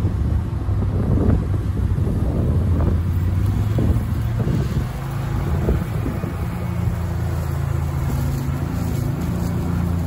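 Heavy diesel engines of grain trucks and a tractor running steadily, their note shifting about halfway through, with wind buffeting the microphone.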